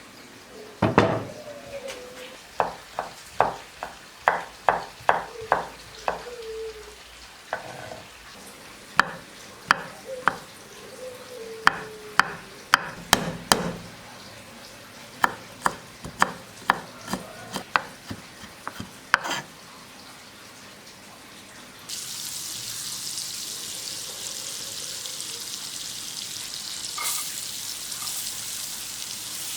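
A run of sharp, irregular taps and knocks of kitchen utensils, then about two-thirds of the way through a steady sizzle starts as food begins frying in a pan.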